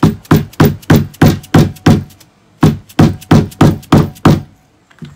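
A mallet striking a steel installation tool held on an annular ring, tapping the ring flush into a Spectra watermaker's Clark pump block. It is a steady run of sharp taps, about three a second: seven, a short pause, then six more.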